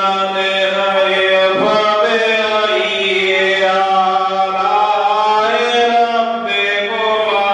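A man's voice chanting a slow devotional recitation into a microphone, holding long melodic notes that slowly rise and fall, over a steady low hum.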